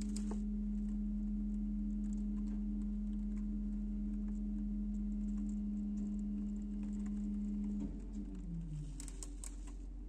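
Rear-loader garbage truck's engine running with a steady drone, dropping in pitch about eight seconds in as it revs down. Light clicks and rattles run over it, with a few sharper clicks near the end.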